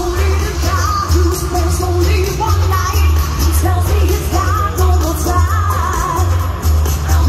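Pop song with singing over a steady, heavy bass beat.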